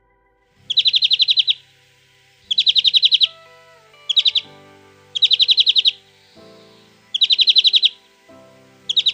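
Greenfinch singing a series of rapid, buzzy trills, each under a second long and repeated about six times at one- to two-second intervals, over soft background music.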